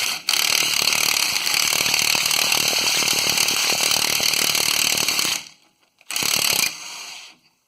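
Impact wrench hammering on a rusted rear U-bolt nut of a pickup's leaf-spring axle mount: a rapid, loud run of blows for about five seconds, then two shorter bursts near the end.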